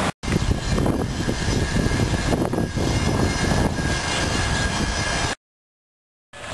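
Outdoor street noise: a low, uneven rumble with a brief dropout at the start. It cuts to silence for about a second near the end.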